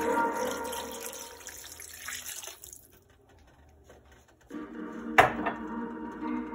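Water pouring into a stainless steel pot of pork ribs in sauce, fading out after about two and a half seconds. After a short silence, soft background music comes in, with a single sharp click.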